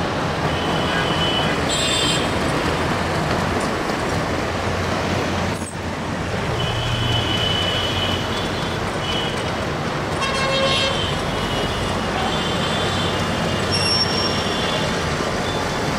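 Dense city road traffic running steadily, with many short vehicle horns beeping on and off throughout, often several at once.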